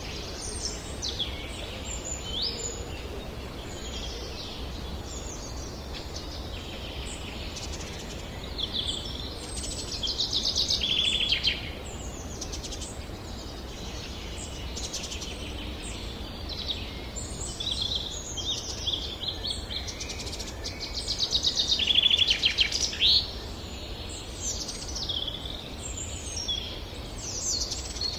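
Summer forest ambience: several birds singing in short phrases over a steady low background rumble. Two louder rapid trills stand out, about ten seconds in and again a little past twenty seconds.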